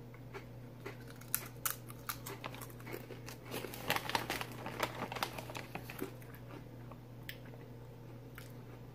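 Ridged potato chips crunching as they are bitten and chewed, with a foil snack bag crinkling as a hand reaches in. The crackles come thickest in the middle.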